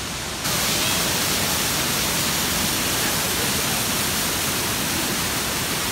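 Havasu Creek rushing over a small cascade: a steady, even hiss of water, which gets louder suddenly about half a second in.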